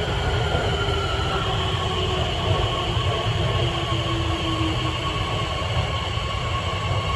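Beijing Subway Line 14 train running along the platform behind the screen doors. A steady heavy rumble of wheels on rail carries a thin electric whine, which dips slightly in pitch over the first second and a half and then holds steady.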